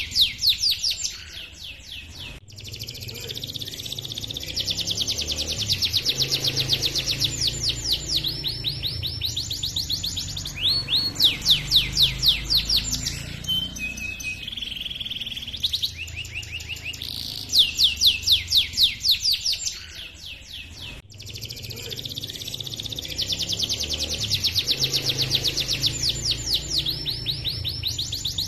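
Male domestic canary singing a long song of fast chirping notes and rolling trills ('cuit cuit ngerol'). Its phrases run together with only brief pauses, and the same sequence repeats about every 18 to 19 seconds.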